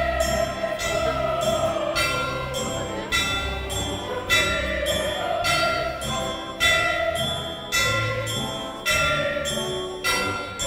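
Live orchestral music played on an outdoor stage, heard from within the crowd: held tones punctuated by a loud accented strike about once a second.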